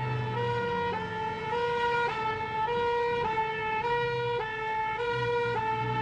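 Ambulance two-tone siren sounding, alternating steadily between a high and a low note about every half second.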